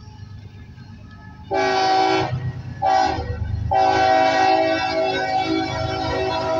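Diesel freight locomotive's air horn sounding for a grade crossing as the train approaches. It gives a blast about a second and a half in, a short blast near three seconds, then a long blast that is held, over the low rumble of the locomotives.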